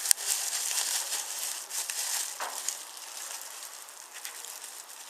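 Packaging rustling and crinkling as a boxed wooden toy is handled, with a sharp click just after the start.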